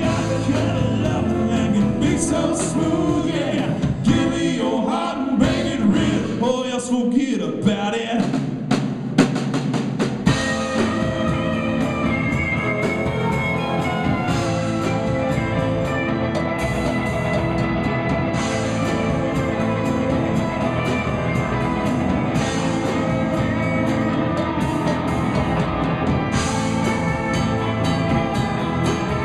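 Live rock band playing: electric guitar, bass guitar and drum kit, with a man singing lead at first. About ten seconds in the singing stops and the band plays on under an electric guitar lead.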